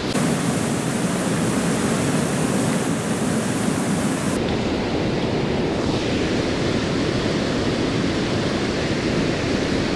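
Fast river water rushing steadily over rapids, a loud even white-water noise. Its tone changes abruptly a little after four seconds and again near six seconds.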